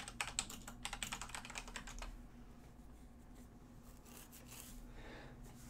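Quick typing on a computer keyboard, a fast run of key clicks for about two seconds, then only a faint steady hum.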